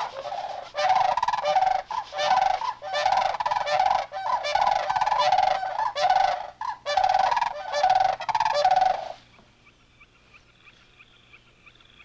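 Sandhill cranes calling: a long run of loud, rolling, rattling honks, repeated one after another, that stops about nine seconds in.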